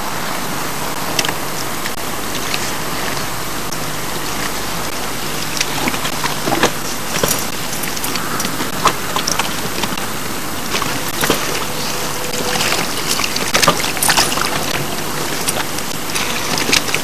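Steady rushing hiss with scattered light clicks and knocks of a wire-mesh keep cage being handled at the water's edge.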